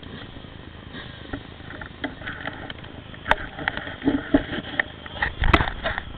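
Dry fallen leaves crunching and rustling underfoot, with knocks from a handheld camera, and a heavy thump about five and a half seconds in.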